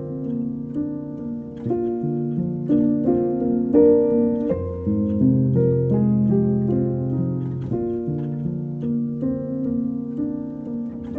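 Background music: a soft piano piece with sustained chords and a picked melody over a bass line.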